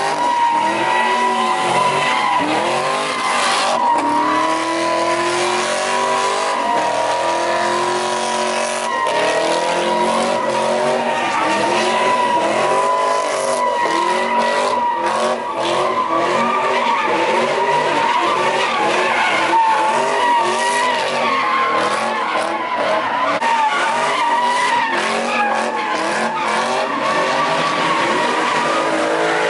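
A car's tyres squealing continuously as it spins donuts, the engine revving up and falling back over and over.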